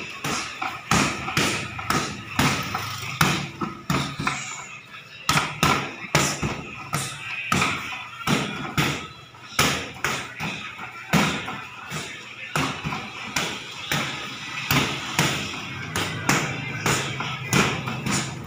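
Boxing gloves landing on a freestanding mannequin-torso punching bag in quick combinations, a few blows a second, with short lulls between runs.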